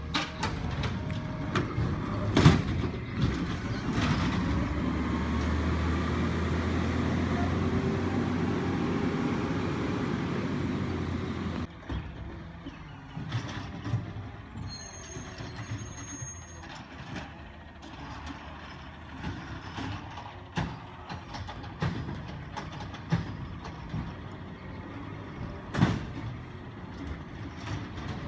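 Garbage truck engine running steadily, with metal clanks from its lifting and packing gear. About twelve seconds in the sound cuts to a quieter, more distant truck with scattered clanks, and one loud bang near the end.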